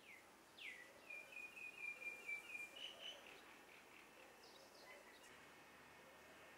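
Faint bird calling over a low steady hiss: two quick falling whistles, then a rapid run of about eight short notes lasting under two seconds.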